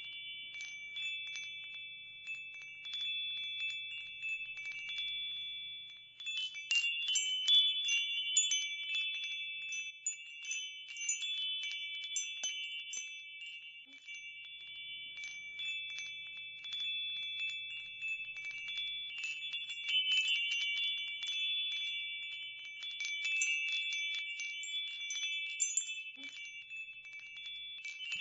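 Chimes tinkling continuously: many light metallic strikes over several sustained ringing tones, busiest about six to nine seconds in.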